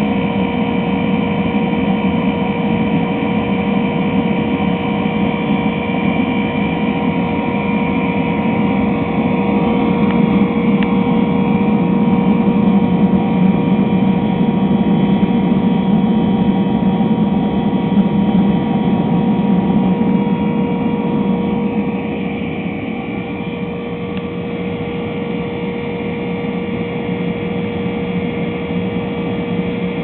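Homemade waste-oil melting furnace running: a steady roar of the burner and its air blast, with a steady hum from the electric blower motor that feeds it. The sound eases slightly about two-thirds of the way through.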